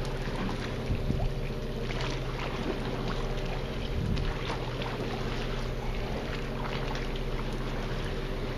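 Steady low hum of a boat's motor running, with a few light clicks and knocks over it.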